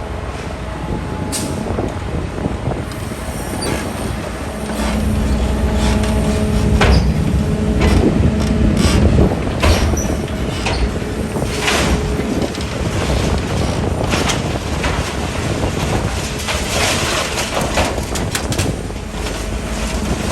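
Liebherr A934C wheeled excavator running, its diesel engine humming steadily. A steady whine comes in about 5 seconds in and holds for several seconds, with scattered metallic clanks and knocks throughout.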